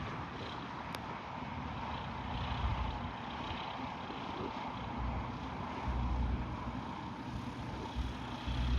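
Sling 2 light aircraft's engine and airflow noise heard from the aircraft, with gusty wind buffeting the microphone in irregular low rumbling surges.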